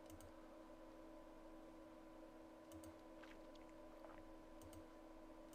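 Faint computer mouse clicks, a few quick pairs, over a quiet steady electrical hum.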